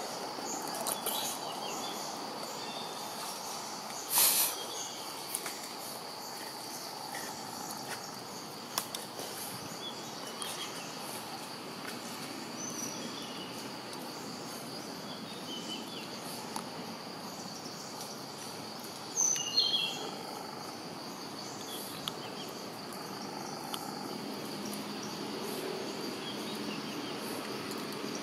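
Outdoor ambience of insects droning steadily at a high pitch, with scattered short chirps. Two brief louder noises stand out, about four seconds in and again about two-thirds of the way through.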